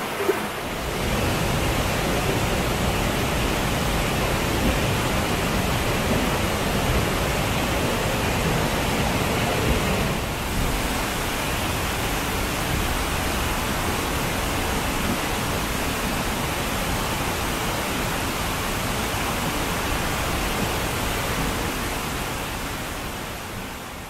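Steady rush of flowing and falling water. A forest stream runs over rocks, then after a change about ten seconds in comes the distant roar of a 70-metre jungle waterfall, and the sound fades out near the end.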